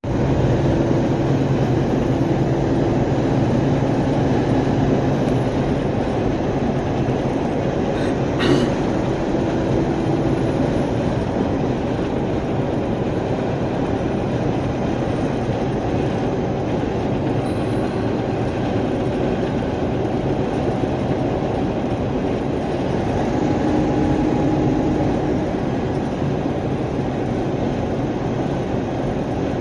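Steady engine and road drone inside a truck's cab at highway speed, with a low hum and one short click about eight seconds in.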